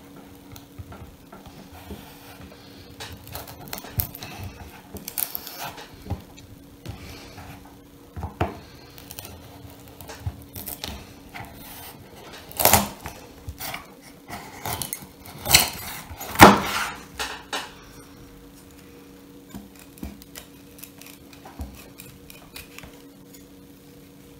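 A large knife cutting and scraping a piece of hard foam on a wooden cutting board: irregular scrapes and taps, loudest in a run of sharp strokes about halfway through. A faint steady hum sits underneath.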